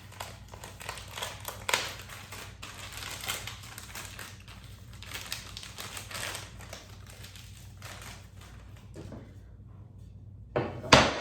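Plastic packaging being handled, crinkling and crackling in irregular bursts, with a sharp knock near the end.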